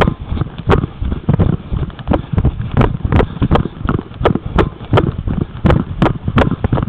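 Footsteps of a person walking at a steady pace, about two to three steps a second, picked up by a head-mounted camera that jolts with each step, over a low rumble.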